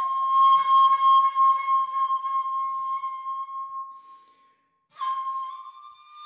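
Solo shakuhachi, the Japanese end-blown bamboo flute, holding one long note that fades away about four seconds in. After a short breath pause a new note starts about a second later.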